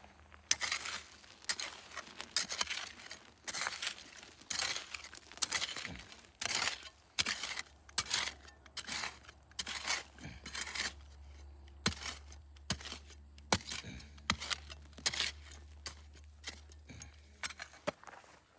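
A small hand digging pick striking and scraping into gravelly, stony soil over and over, about one to two hits a second, with pebbles clinking against the steel head as a target hole is dug.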